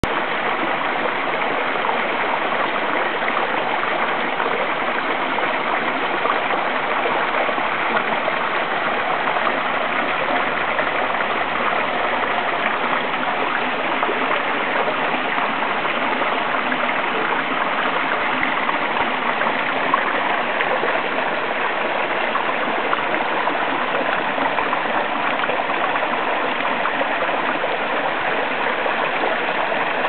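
Small waterfall in a rocky mountain stream, water cascading over the rocks with a steady rushing sound.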